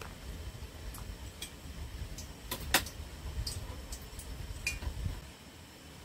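A few light metallic clicks and clinks from metal kitchen tongs and utensils, the sharpest about two and a half seconds in, over a low rumble that fades out near the end.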